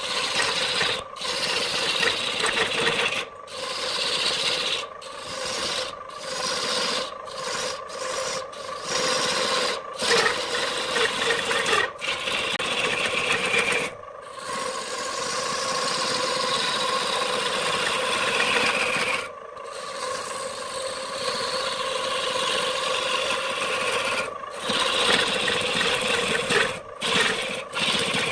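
Wood lathe spinning a redwood vase blank while a hand-held gouge cuts into it: a steady scraping, shaving noise over the lathe's steady hum, stopping and starting many times with short breaks.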